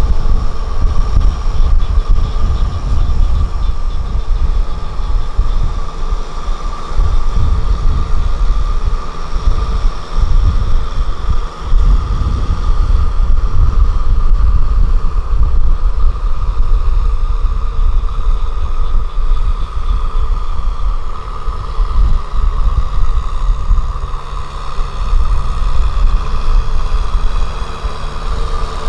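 Kubota M6040SU tractor's diesel engine running steadily under load while its rear rotavator churns wet paddy mud, with a deep rumble and a steady high whine.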